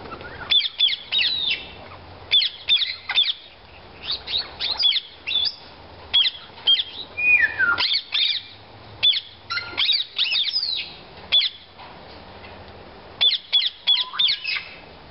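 Rose-ringed parakeets (Indian ringnecks) calling: high-pitched, sharp calls in quick runs of several at a time, with short pauses between runs and one longer falling call about halfway through.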